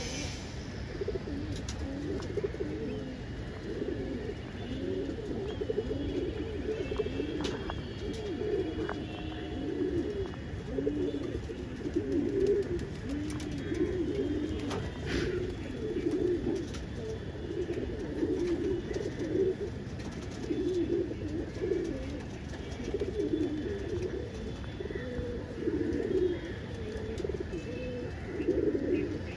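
A flock of domestic pigeons cooing continuously, many overlapping coos with no break.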